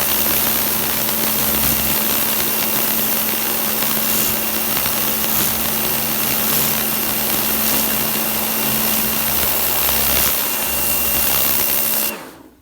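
Kärcher pressure washer running: a steady motor hum under the loud hiss of the high-pressure water jet spraying the patio flagstones. It stops abruptly near the end.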